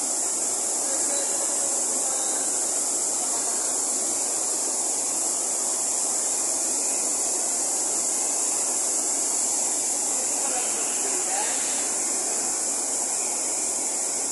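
A swollen river rushing over rocks in white-water rapids: a steady, unbroken roar of water.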